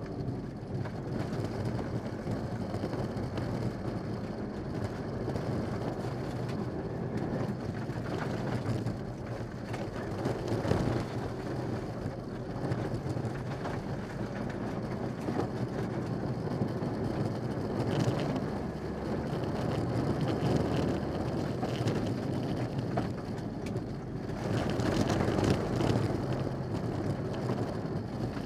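Mitsubishi Lancer Evolution VI rally car heard from inside the cabin at speed on a gravel stage: the turbocharged four-cylinder engine running hard, rising and falling with the throttle, over steady gravel and tyre noise.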